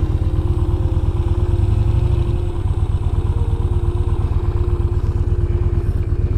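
Yamaha XV950 Bolt's air-cooled V-twin running at low revs with a steady low pulsing beat, easing off about two and a half seconds in as the bike slows.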